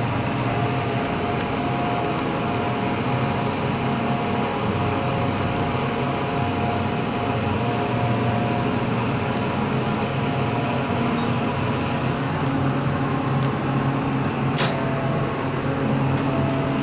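Steady whoosh of an elevator cab's ventilation fan, with the low hum of the hydraulic elevator's pump motor running beneath it as the car is driven up. A single sharp click comes about two seconds before the end.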